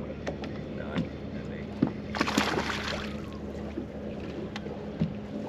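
A hooked bass splashing at the surface for about a second, a little over two seconds in, while it is fought on a spinning rod beside the boat. Scattered small clicks and a steady low hum run underneath.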